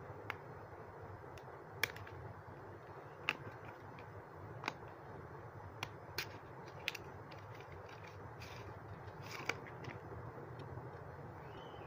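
Plastic blush compact and its cardboard box being handled: scattered sharp plastic clicks and brief scraping as the palette is slid out of the box and its clear hinged lid is opened.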